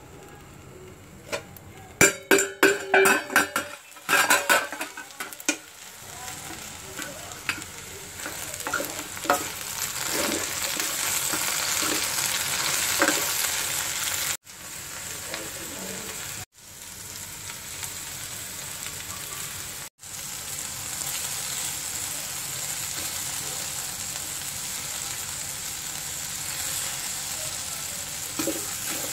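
Chopped okra and onions frying in hot oil in a frying pan, sizzling steadily while stirred with a spatula. A burst of loud clatter about two seconds in.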